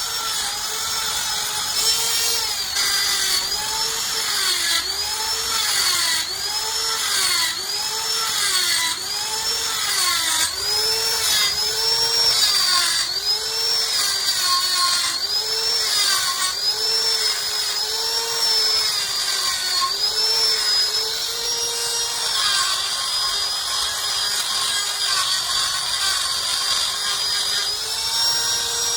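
Handheld electric power tool whining under load as it works steel of a truck leaf spring, its pitch sagging and recovering in a steady rhythm a little more than once a second as it is pressed and eased. Later it runs at a more even pitch.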